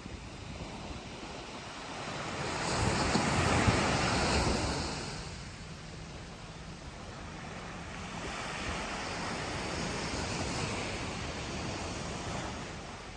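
Small waves breaking and washing up a sandy beach. The surf swells about two seconds in and peaks around four seconds, then a gentler wash follows later.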